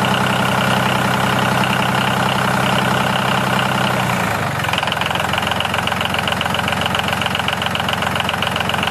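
Diesel tractor engine running steadily with a fast, even pulse. About four seconds in, its low end drops away and it turns higher and thinner.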